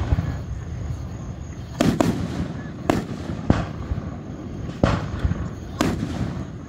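Aerial firework shells bursting overhead: five sharp booms at uneven intervals, starting about two seconds in.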